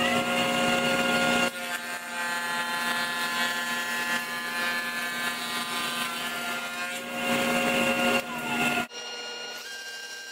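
Jointer running at a steady whine, planing an angled face on a glued-up wooden block. It cuts off sharply about nine seconds in, leaving a quieter steady hum.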